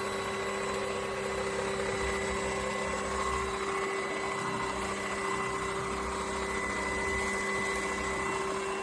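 SUXIANGVAC cordless stick vacuum running steadily, a motor whine over a continuous rush of airflow.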